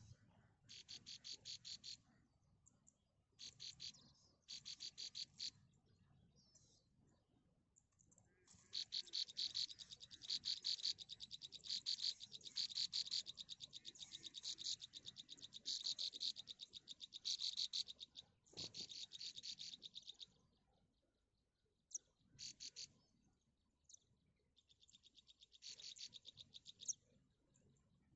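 Nestling songbirds begging in the nest: bursts of rapid, high-pitched chirping, each about a second long, running almost unbroken through the middle stretch.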